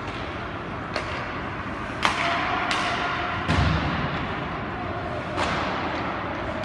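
Ice hockey game sounds over a steady rink hum: several sharp clacks of sticks and puck on the ice. About three and a half seconds in comes a heavier thud.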